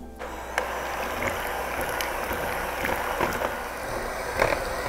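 Pancake batter of eggs, milk and flour being beaten in a bowl: a steady mixing noise that starts just after the beginning, with scattered small knocks.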